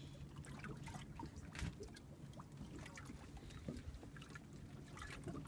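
Water lapping and splashing irregularly against a boat's hull, over a steady low rumble.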